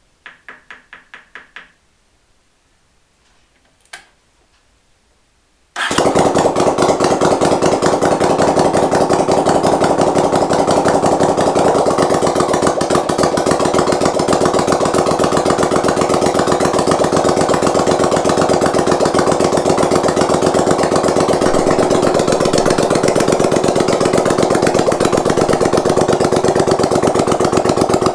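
A freestanding 1981 Honda GL500 Silver Wing V-twin engine on a display stand starts suddenly about six seconds in and runs steadily at idle on its first start, with a fast, even firing beat; the builder thinks the left side is running a little lean. Before it starts, a short run of light ticks and a single click.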